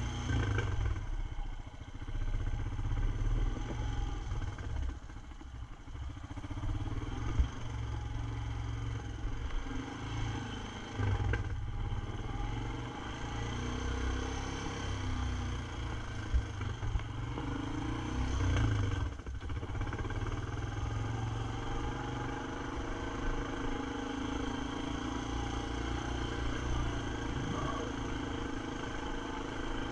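ATV engine running as the four-wheeler rides a rough dirt trail, its note rising and falling with the throttle and easing off briefly about five seconds in and again a little before twenty seconds.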